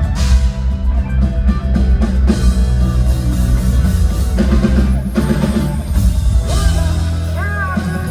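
Live band playing a rock song during a soundcheck, with drum kit and guitar over a steady bass line.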